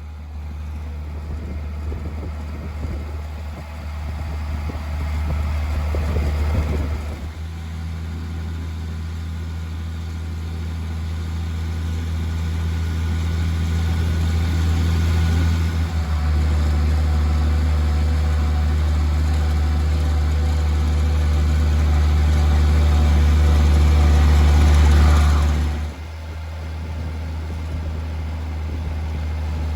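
A vehicle engine running steadily, building slowly in loudness. It drops back abruptly about seven seconds in and again near the end.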